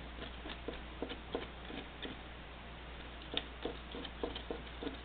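Black Sharpie marker drawing in short strokes on crumpled aluminium foil: an irregular run of small ticks and scratches, several a second.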